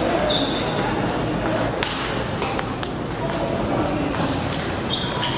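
Table tennis play in a large hall: short high squeaks, most likely shoes on the court floor, scattered sharp clicks of the ball, and a steady murmur of background voices.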